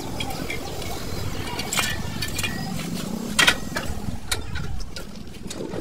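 A few sharp metal clinks and knocks as drum-brake shoes and brake parts are handled, the loudest about three and a half seconds in, over a steady low background rumble.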